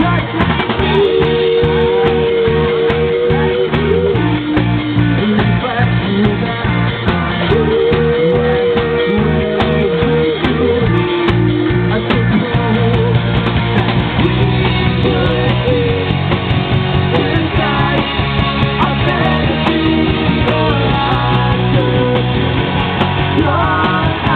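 Live rock band playing an instrumental passage, guitars over a steady drum beat, sounding thin and band-limited as from a small handheld recorder.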